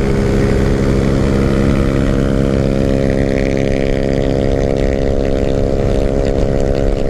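150 cc single-cylinder motorcycle engine running at steady high revs while riding at speed, with wind buffeting the microphone.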